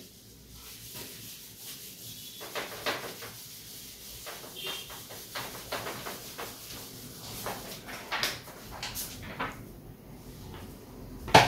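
Handheld eraser wiping a whiteboard clean in quick, irregular strokes, with a sharp knock near the end.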